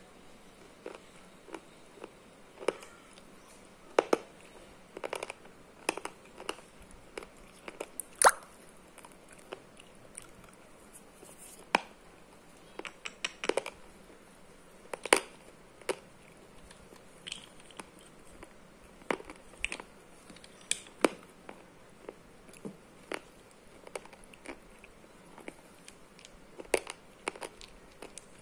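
Slate pencils snapping and crunching: irregular sharp cracks and clicks, a few of them much louder than the rest.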